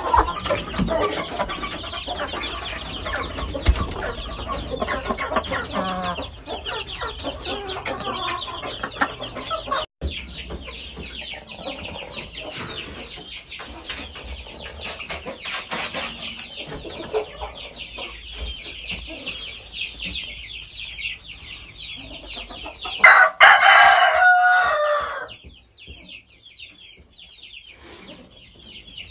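Aseel-type game chickens clucking and calling in their pens, with one loud rooster crow of about two and a half seconds near the end.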